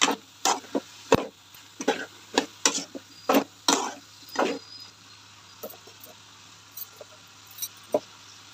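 A spatula stirring and scraping cauliflower and onions in an aluminium cooking pot, about a dozen quick strokes. After about four and a half seconds it goes quieter, with only a few faint taps.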